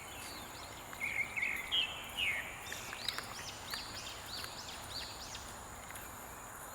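Birds calling in tropical woodland: a string of short, high, arched chirps, a few louder notes in the first couple of seconds, over a steady high insect drone.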